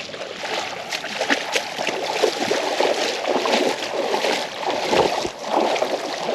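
Water sloshing and splashing in uneven surges as people wade through a shallow lagoon.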